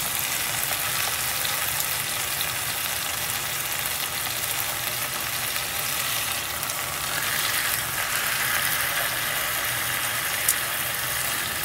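Marinated chicken leg pieces sizzling in oil on a ridged grill pan as they are turned over with metal tongs. The sizzle grows louder about seven seconds in, and a single sharp click comes near the end.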